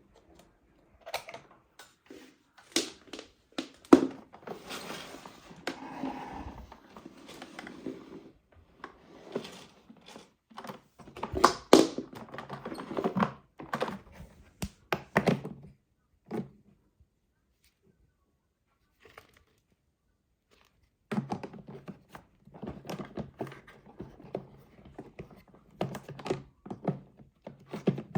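Handling noises from a vacuum cleaner's plastic parts: irregular knocks, clicks and rustling, with no motor running, broken by a silent gap of about four seconds past the middle.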